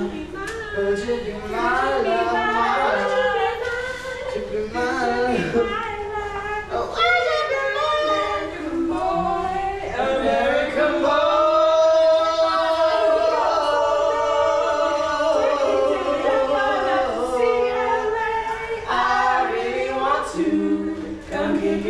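Voices singing unaccompanied, with one long wavering held note about ten seconds in.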